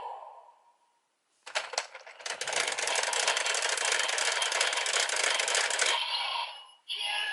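Zenkai Buckle toy belt playing the Vroom Vroom gear's dump-truck sound effect: a few sharp clicks, then about four seconds of dense, rapid rattling clatter like dumped rubble, which cuts off and gives way to the toy's electronic audio near the end.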